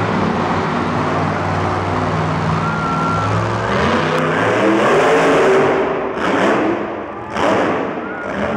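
Grave Digger monster truck's supercharged V8 engine running, then revving up about four seconds in as the truck drives off and launches over a dirt ramp. The revs fall back, then surge again sharply near the end.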